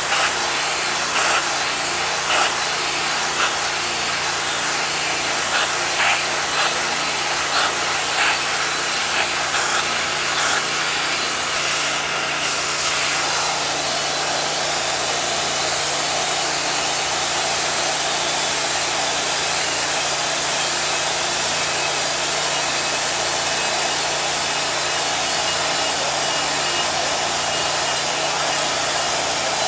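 Unimanix ARH-4070GDCS hot-water pressure washer jet blasting a metal plate to strip paint and rust: a continuous loud spray hiss over a low steady hum. It is uneven with small spikes through the first half and evens out at about the halfway point.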